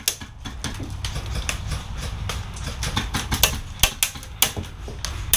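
Airsoft guns firing single shots: a run of sharp, irregular cracks, roughly two a second, over a steady low rumble.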